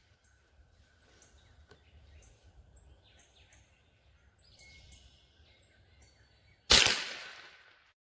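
A single .22 LR rifle shot from a Rossi RS-22 semi-automatic, sharp and loud, about two-thirds of the way in, ringing off over about a second. Before it, faint bird chirps.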